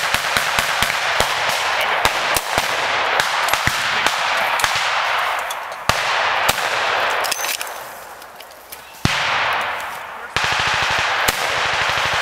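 Blank-fire gunfire in a mock battle: a Bren light machine gun firing among irregular single shots. The firing eases off about eight seconds in, a sharp single shot comes about nine seconds in, and a fast, even burst runs near the end.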